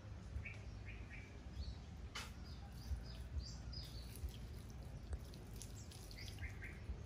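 Small birds chirping in short calls, a few at a time in three or four clusters, over a faint steady low background. One sharp click about two seconds in.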